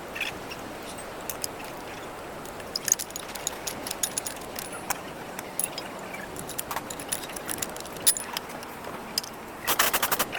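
Irregular metallic clinks and taps of hand tools and metal brake parts being handled, with a quick flurry of clicks near the end, over a steady background hiss.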